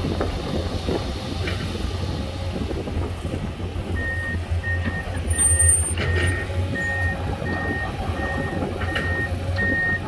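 Heavy diesel engines of an excavator and a dump truck running steadily. From about four seconds in, a machine's high-pitched backup alarm beeps about three times every two seconds.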